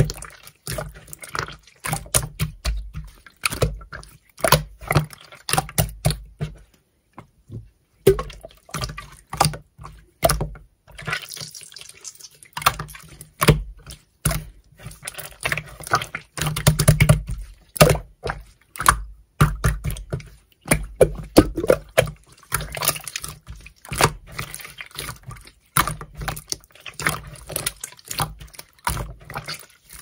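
Clear red slime squeezed, pressed and stretched by hands, giving a dense, irregular run of wet, sticky clicks, pops and squelches, with a couple of brief pauses.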